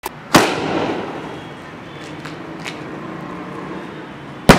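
A 3-inch sky shot aerial firework shell: a loud bang about a third of a second in as the shell is fired from its tube, a few seconds of outdoor noise with faint crackles while it climbs, then a second loud bang near the end as the shell bursts in the sky.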